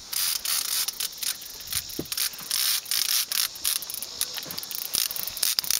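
Fishing reel clicking in quick irregular bursts while a hooked striped bass pulls hard on the line.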